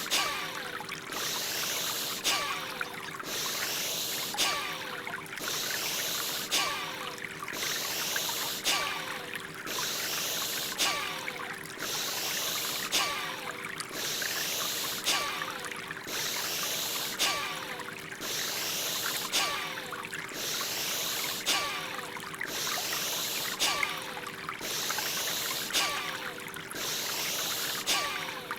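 Forceful, rhythmic in-and-out breathing of Bhastrika (bellows breath), one full breath about every two seconds with a sharp surge at each stroke, over a steady background of flowing water and a low sustained tone.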